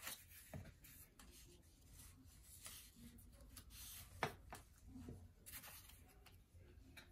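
Faint rubbing and rustling of construction-paper circles being pressed and smoothed down onto a paper sheet, with light taps on the tabletop and one sharper tap about four seconds in.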